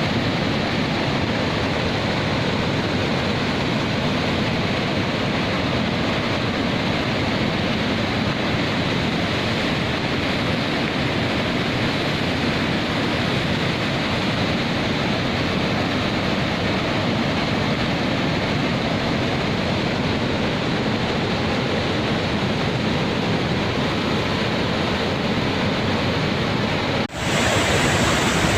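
Athirapally Falls, a large waterfall in heavy flow, making a steady, loud rush of falling water. Near the end the sound breaks off for an instant and returns brighter and hissier.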